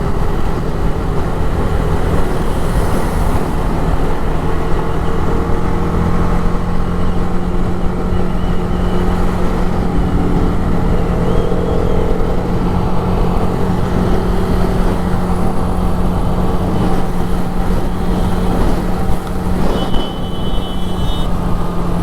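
TVS Apache RR 310 motorcycle riding at a steady speed in traffic: a steady engine hum under wind and road noise. A short high beep sounds near the end.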